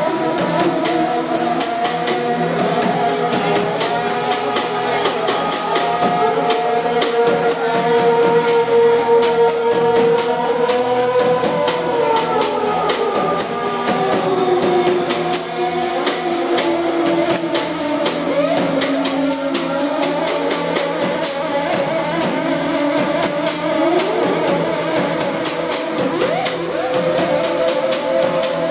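Live experimental electronic music: several long held tones that slowly slide up and down in pitch, layered over a dense, fast, even rattling texture.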